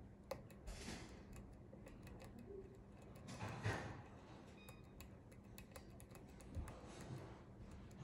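Faint, scattered clicks of a hook pick working the pin stack of a Russwin Emhart lock cylinder under tension, with a short louder rush of noise about three and a half seconds in over a faint steady hum.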